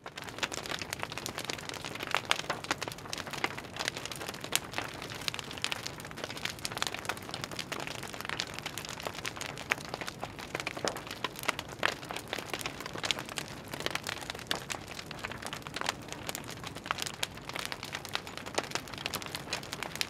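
Wood campfire burning with a dense, irregular crackle of small pops and snaps over a soft, steady rush of flame.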